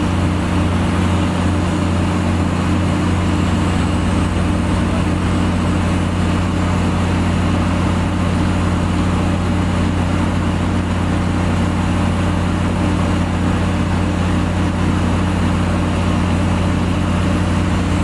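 Heavy construction machine's diesel engine running steadily at an even, unchanging speed.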